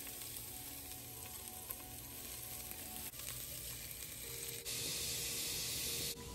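Food sizzling in a frying pan, a steady hiss. Near the end a louder, sharper hiss lasts about a second and a half, starting and stopping abruptly.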